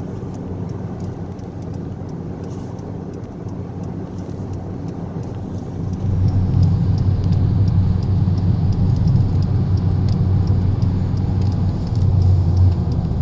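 Hyundai Veloster Turbo on the move: a steady low engine and road drone that gets markedly louder about six seconds in and stays up, swelling once more briefly near the end.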